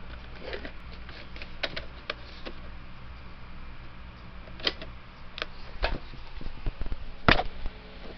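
Handling noise: scattered plastic clicks and knocks as a portable boombox and a handheld camera are moved about. The loudest is a single knock about seven seconds in, over a steady low hum.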